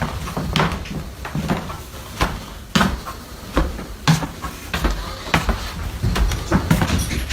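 A run of irregular knocks and bumps, roughly one or two a second, over low rumbling handling noise.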